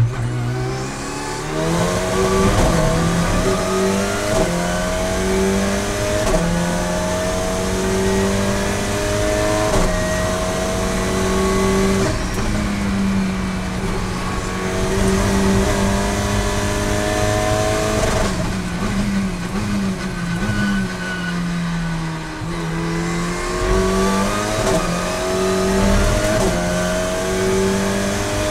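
Alpine A110 GT4 race car's turbocharged four-cylinder engine heard from inside the cockpit, pulling hard out of a slow corner with its pitch rising and dropping back at each upshift. A little past the middle it blips down through the gears under braking, then climbs through the gears again.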